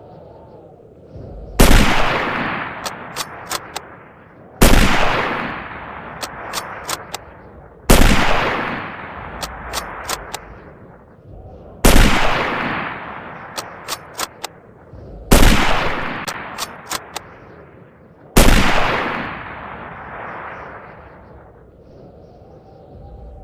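Carcano bolt-action rifle fired six times, about three to four seconds apart, each shot with a fading echo. Each shot is followed by a quick run of three or four sharp metallic clicks as the bolt is worked to chamber the next round.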